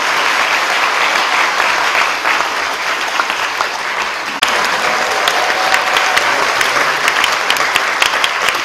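Congregation applauding steadily, with single sharp claps standing out more in the second half.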